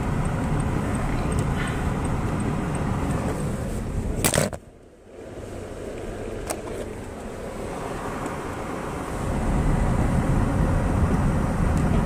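Car cabin noise while driving on a snow-covered road: steady engine and tyre noise with a sharp click about four seconds in, after which the noise cuts to much quieter and builds back up near the end.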